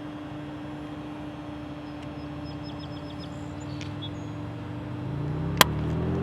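Steady low hum with a vehicle's rumble swelling near the end, and a single sharp snap about five and a half seconds in from the Tesla wheel's plastic center cap being worked with the hands.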